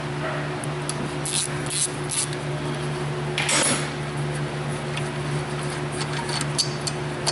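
Hand tools clicking and scraping on the metal brake caliper bolts as they are loosened with a 14 mm socket, a few irregular clicks and one longer scrape about three and a half seconds in, over a steady low hum.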